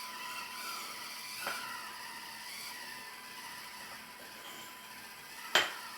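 Two Axial SCX24 1/24-scale RC crawlers straining against each other in a truck pull: a steady whine from their small electric motors and gear drivetrains. There is a light click about one and a half seconds in and a sharp knock near the end.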